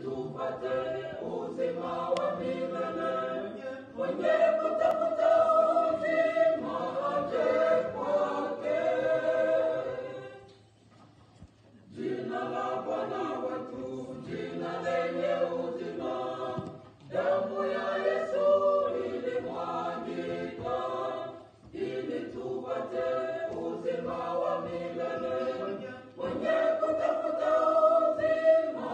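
A small group of men and women singing a hymn together as a choir, in phrases with short breaks between them and a longer pause of about a second and a half near the middle.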